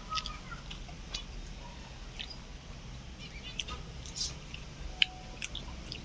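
Budgerigars chirping in short, high, scattered calls, with close chewing and mouth clicks.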